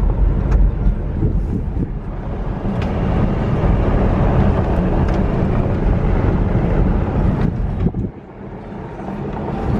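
Toyota Tacoma pickup driving on a dirt trail: a steady rumble of engine and tyres with a few light knocks, growing quieter about eight seconds in before picking up again.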